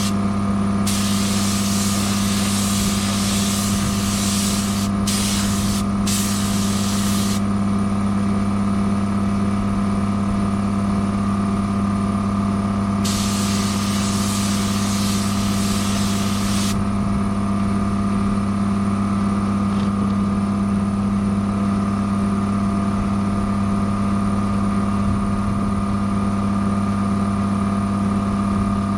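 Paint spraying hissing in two passes of clear coat: one from about a second in to about seven seconds, broken twice briefly, and another lasting about four seconds in the middle. A steady machine hum runs underneath throughout.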